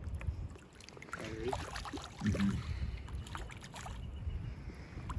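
Wind rumbling on the microphone over the faint wash of a stream, with a few light knocks and two brief low tones.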